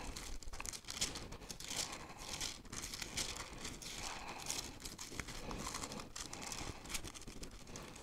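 Bible pages being leafed through, a run of soft paper swishes and crinkles.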